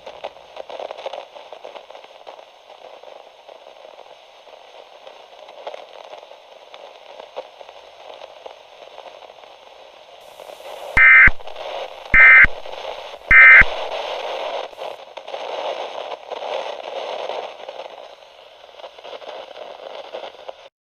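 Radio static hiss with crackle, broken about eleven seconds in by three short, loud bursts of Emergency Alert System end-of-message data tones, about a second apart. The static then carries on and cuts off suddenly near the end.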